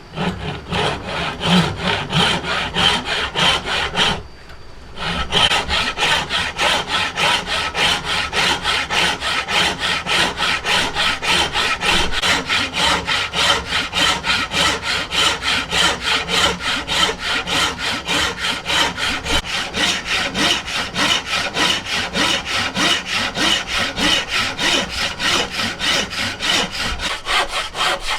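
Hand saw cutting wood in quick, even back-and-forth strokes, with a short break about four seconds in before the steady sawing resumes.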